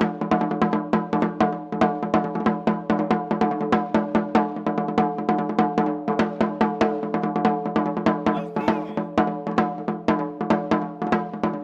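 Katsugi-oke taiko, the Japanese barrel drum carried on the shoulder, played as music in a fast, steady run of strokes over a ringing drum tone.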